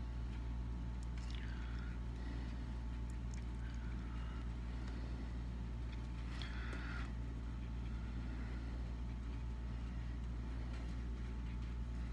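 Steady low hum, with three faint brief swishes about a second and a half, four and six and a half seconds in.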